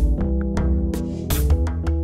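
Background music with a steady drum beat, about one hit every 0.7 s, under held pitched notes.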